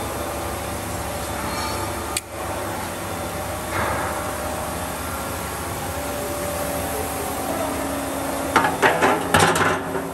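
Steel roll forming machine running with a steady mechanical hum as it forms truck-body side panels. Near the end comes a quick series of sharp metal clanks.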